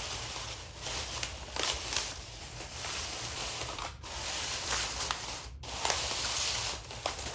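Household rubbing and swishing, in swells of about a second each, with a few light clicks; the sound drops out briefly twice, near the middle and about two-thirds in.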